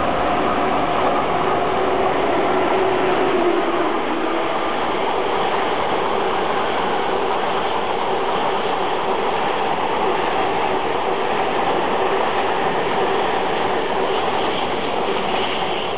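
Deutsche Bahn ICE high-speed train running past at close range on curved track: a loud, steady noise of wheels and cars on the rails. A few faint steady tones can be heard in the first few seconds, then fade out.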